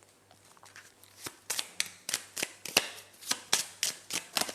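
Tarot cards handled and shuffled by hand: a run of sharp card slaps and snaps, about four a second, starting about a second in.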